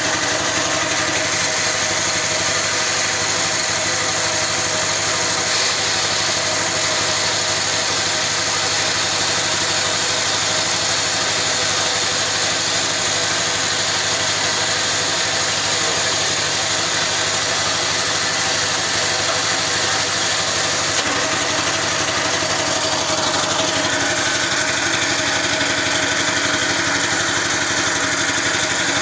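Small single-cylinder engine of a portable winch running steadily, driving the winch drum through a V-belt and gearbox. About 24 seconds in, a higher steady whine joins in.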